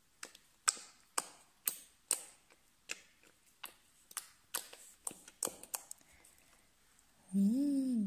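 Sharp clicks about twice a second as over-thickened slime is stirred and worked together with added glue to soften it. Near the end a short hummed voice rises and falls.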